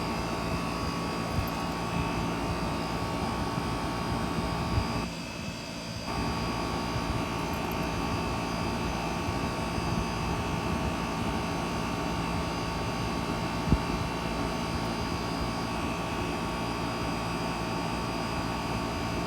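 3-ton Miller air conditioner running steadily, a constant hum with a whirring fan noise over it. The sound dips briefly about five seconds in, and there is one short tick near the end.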